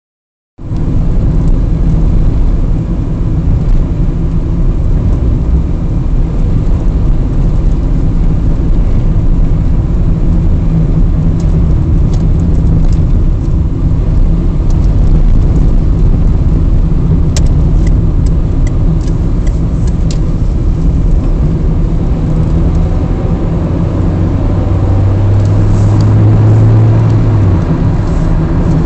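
Steady, loud low rumble of a car on the move. A low steady hum comes in for a few seconds near the end, with a few faint clicks earlier on.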